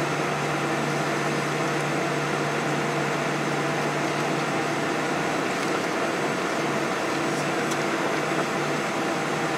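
Steady airliner cabin hum while taxiing: jet engines at low power and the cabin air system, with a few faint constant tones under an even rush.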